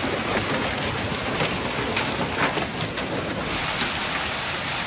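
Hail and rain pelting down in a dense, steady hiss, with scattered sharper hits of hailstones. The sound changes about three and a half seconds in, where a second storm clip with wind-whipped hail begins.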